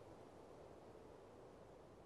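Near silence: a faint, steady background hiss with no distinct sounds.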